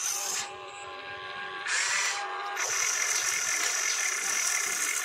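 Radio-controlled excavator's electric motors whining steadily as it lifts a bucket of soil and swings toward the dump truck. The whine drops quieter about half a second in and comes back louder with a short rising glide a little before two seconds in.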